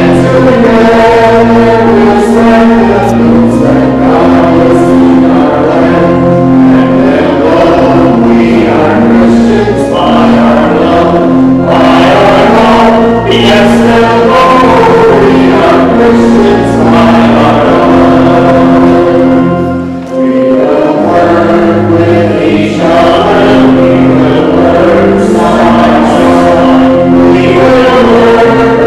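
Choir singing the offertory hymn with sustained chordal accompaniment, with a short pause about two-thirds of the way through.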